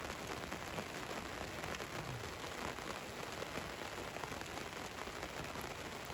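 Rain falling on a van's roof: a steady hiss of rain dotted with many small, irregular drop impacts.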